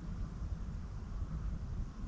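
Wind rumbling on the microphone, a steady low buffeting with a faint hiss above it.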